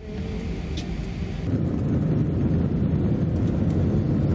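Jet airliner's engines at takeoff power heard from inside the cabin, with a heavy rumble as it accelerates down the runway; the noise swells about a second and a half in.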